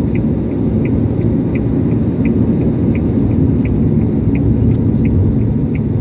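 Steady low rumble of road and engine noise inside a moving car's cabin, with a faint regular ticking about three times a second.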